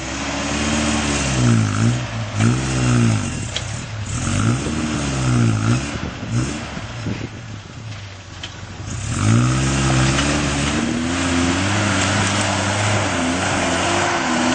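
Toyota Hilux engine revving up and down in repeated surges as the bakkie struggles to climb out of a muddy stream crossing, then held at higher revs from about nine seconds in, over a steady hiss.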